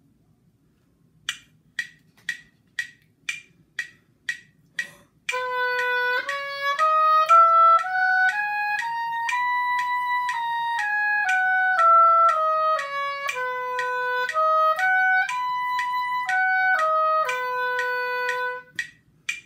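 Oboe playing the concert B major scale up an octave and back down, then the arpeggio up and down, one note per beat at quarter note = 120, tongued going up and slurred coming down. Eight metronome clicks count in before it, and it ends on a held low B.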